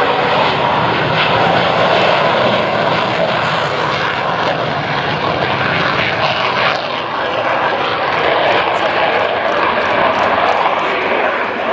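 MiG-29 Fulcrum's twin RD-33 turbofans at full afterburner through the takeoff roll and lift-off: a loud, steady jet roar.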